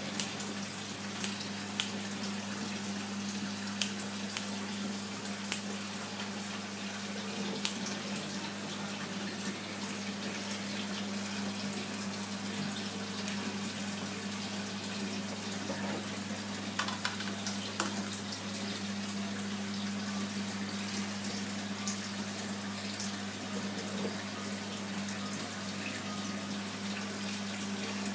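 Aquarium filter running: a steady splash and trickle of water over a constant low pump hum, with a few sharp clicks scattered through it.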